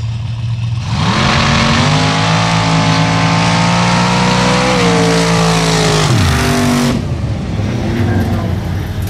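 Formula offroad drag cars idling on the line, then launching at full throttle: a sudden loud engine blast about a second in, with the note rising and holding high for several seconds. Near six seconds the pitch drops sharply as the drivers lift off, and the engines then fall back to a lower running sound.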